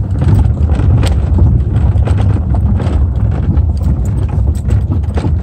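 Car crawling down a rough dirt and gravel trail, heard from inside the cabin: a steady low rumble of tyres and suspension over the rutted ground, with frequent small knocks and rattles as stones and bumps hit the car.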